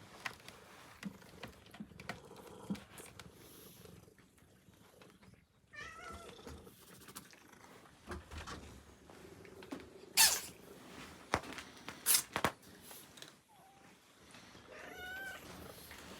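A cat meowing twice, once about six seconds in and once near the end, each a short wavering call. Between the two, a few sharp, loud rustling or knocking noises are the loudest sounds.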